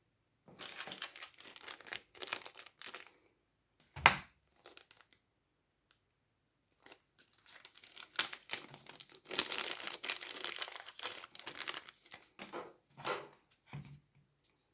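Crinkling and tearing handling sounds in irregular bursts as a replacement chin pad is fitted to a bicycle helmet strap, with one sharp knock about four seconds in.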